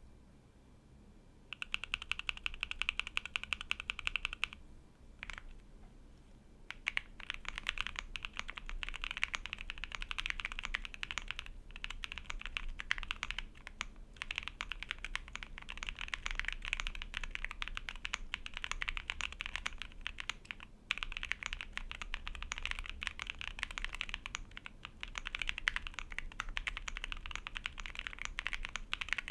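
Akko Alice Plus mechanical keyboard with lubed and filmed Quartz v2 switches and ABS keycaps, typed on: first a fast, even run of keystrokes, a short pause with a single keystroke, then steady continuous typing with a few brief breaks.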